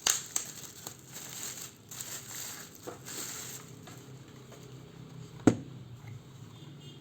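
Packaging crinkling and rustling as the soundbar is unpacked, with small clicks, for about three and a half seconds, then a single sharp knock about five and a half seconds in.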